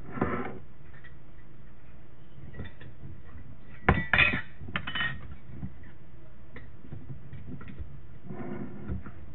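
Glass jars and metal jar lids clinking and knocking against each other and the countertop. There are scattered clinks, with the loudest cluster about four seconds in.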